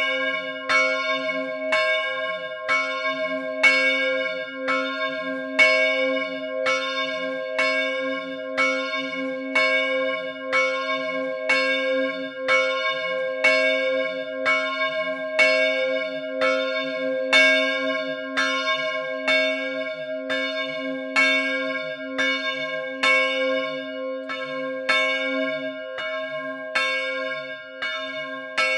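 Large bronze church bell in C4, cast by the De Poli foundry in 2002, swung electrically high in the Friulian 'a slancio' style. Its clapper strikes steadily about once a second, and each stroke rings on into the next over a constant low hum.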